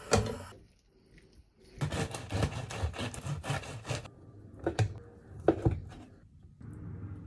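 A knife working on bread in quick repeated strokes, about four a second, for a couple of seconds, followed by two sharp knocks.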